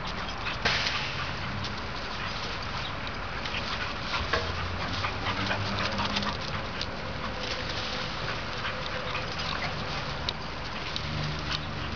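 A boxer and an Australian Shepherd puppy play-fighting on grass: dog growls and scuffling, with a sharp, loud sound about half a second in, over a steady background hiss.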